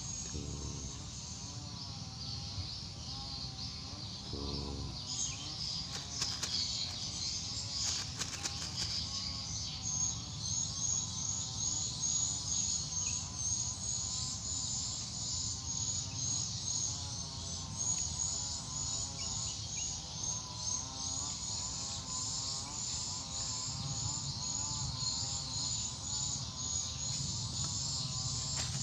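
Swamp insects chirping: a high-pitched chirp repeating about twice a second sets in about a third of the way through, over a lower wavering trill. A few short clicks come about a quarter of the way in.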